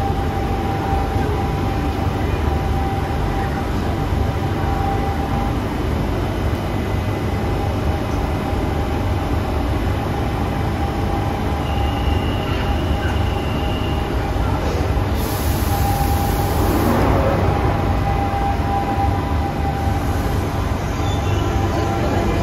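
London Underground train standing at the platform: a steady low rumble with a constant hum. A faint high tone sounds briefly about twelve seconds in, and a short burst of hiss follows about fifteen seconds in, before the doors are seen shut.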